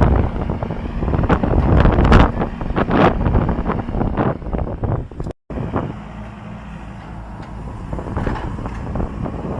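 A motor running with wind buffeting the microphone and irregular knocks, cutting off abruptly about halfway through to a steadier, quieter engine hum.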